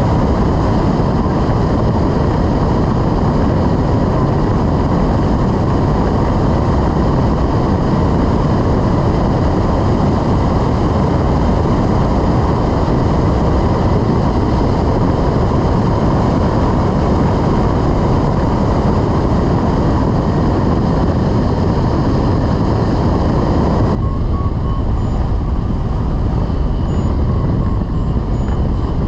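Loud, steady rush of wind over the microphone of a rigid-wing hang glider in flight. About 24 seconds in the rush changes character and a string of short high beeps begins, the variometer's tone for a climb.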